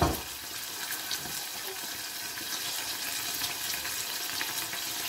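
Tarka of oil, tomato sauce and cumin seeds sizzling steadily in a small stainless steel saucepan, a fine crackling hiss. There is a single knock right at the start.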